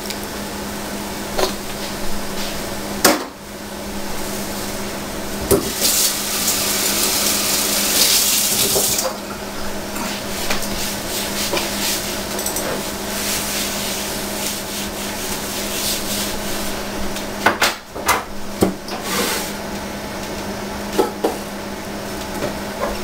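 Beer poured from a can into a pot of ribs, the liquid splashing steadily onto the meat, with a brighter, hissier stretch of pouring about six to nine seconds in. A few knocks and clatters come near the end.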